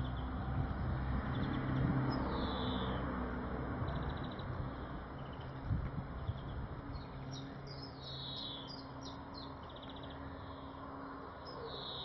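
Small songbird calling repeatedly: short falling whistled notes and brief buzzy trills, with quicker high chirps in the second half. A low steady rumble runs underneath, with a soft thump about six seconds in.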